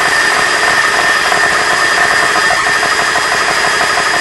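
GX-E-CS2 portable high-pressure air compressor running steadily as its pump builds pressure, its cooling fans going, with a steady high whine over the running noise. A loose nut seal at the outlet fitting is leaking air.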